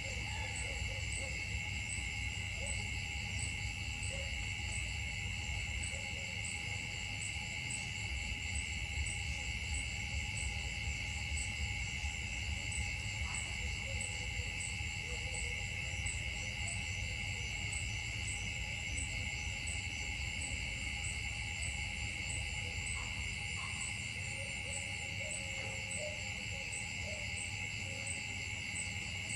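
Insect chorus in the trees: a steady high buzzing with a regular pulsing chirp above it, over a constant low rumble.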